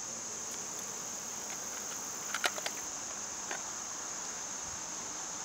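Steady, high-pitched insect chorus droning without a break, with a few light clicks about two and a half seconds in and one more a second later.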